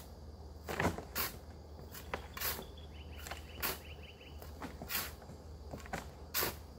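A steel shovel scraping into a pile of shellrock fill and tossing scoops into a plastic wheelbarrow tipped on its nose, with a sharp scrape or thud about once a second.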